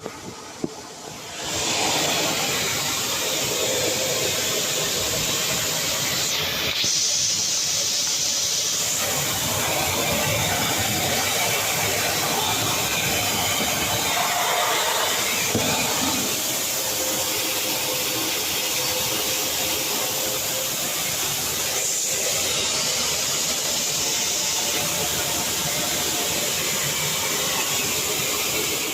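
Dog grooming dryer (pet blower) switched on with a click, then running steadily, blowing a loud rush of air through a tumble dryer's vent hose to clear out dog fur and fluff. It cuts off at the end.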